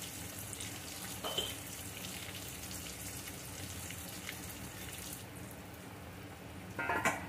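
Potato pieces frying in hot oil in a kadai, a steady sizzle. A metal spatula scrapes against the pan briefly near the end.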